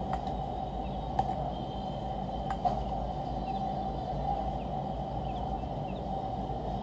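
A few sharp computer mouse clicks, the clearest about a second in and near the middle, over a steady background hum, with a few faint short chirps.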